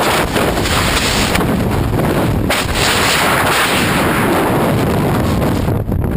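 Heavy wind buffeting the camera microphone in skydiving free fall: a loud, continuous rushing roar with brief fluttering dips.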